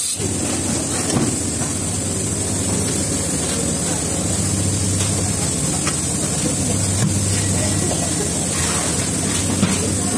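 Automatic shrink-wrapping (web sealer) machine running, with a steady hum and a continuous hiss and a few light clicks.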